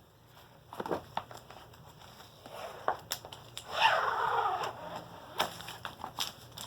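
A school notebook being handled so that it rustles and crackles: a few light clicks and rustles, then a louder crinkling stretch of about a second, four seconds in, followed by more scattered clicks.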